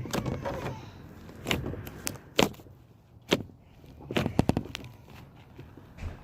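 Homemade slime being squeezed and stretched by hand, giving a series of sharp pops and clicks, with a quick cluster of them about four seconds in.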